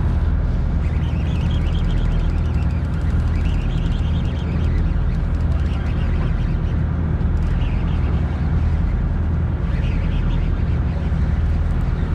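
Steady low drone of a fishing boat's engine, with wind rumbling on the microphone.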